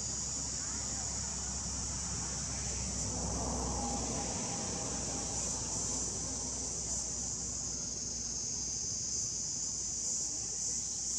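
Steady, high-pitched insect chorus droning without a break, with a low rumble underneath that eases about four seconds in.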